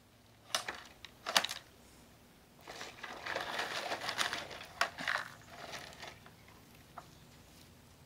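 Gravel crunching and scraping as a toy front-end loader's bucket digs and scoops it, with sharp clicks of stones knocking on the toy. A couple of single clicks come first, then a longer scraping scoop starts near the three-second mark and lasts about two seconds.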